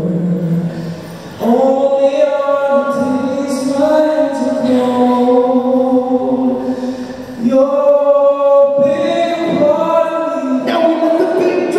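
A group of voices singing a cappella in long held chords, with the chord changing about a second and a half in and again past the middle.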